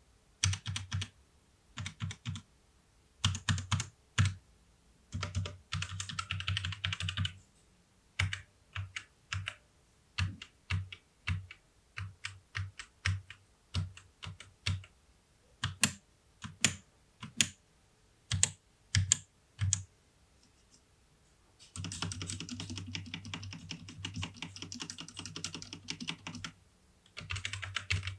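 Typing on a Tecware Phantom 104 mechanical keyboard with Outemu Brown tactile switches. Short bursts of fast typing open the stretch, then slower single key presses follow, then a long run of rapid typing and a last short burst near the end.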